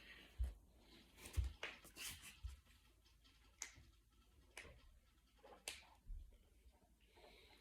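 Finger knuckles being cracked: a series of sharp, irregularly spaced pops, the loudest two in the first second and a half.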